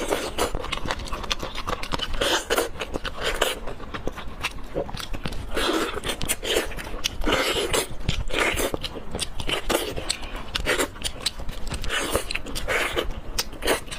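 Close-miked eating sounds of spicy pork leg curry with white rice: chewing and biting in repeated bursts about once a second, with many sharp clicks.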